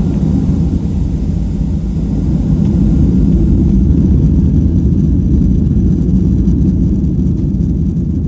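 Steady low rumble of a jet airliner in flight, engines and airflow heard from inside the passenger cabin.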